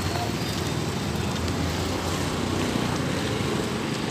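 Steady roadside traffic noise: vehicles running and passing on the street.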